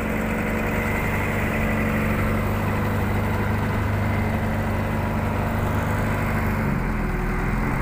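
Anchovy fishing boat's engine running steadily while the boat is under way, a low even hum heard from on deck. Its tone shifts slightly near the end.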